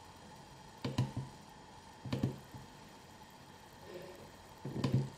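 Toshiba HDWJ110 2.5-inch 5,400 RPM laptop hard drive seeking: three short bursts of clicks with a low buzz from the head actuator, about a second in, about two seconds in and near the end, over a faint steady tone.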